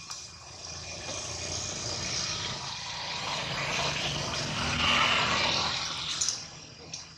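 A vehicle passing by: a rushing noise that builds for several seconds, is loudest about five seconds in, then fades quickly, followed by a couple of short clicks.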